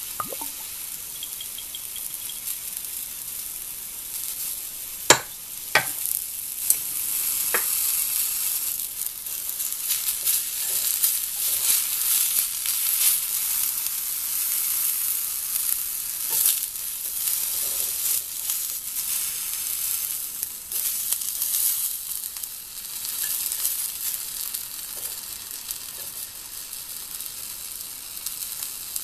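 Food sizzling in a hot cast-iron skillet over a tabletop gas burner, the sizzle growing louder and busier as vegetables go into the pan. A few sharp clicks sound about five to seven and a half seconds in.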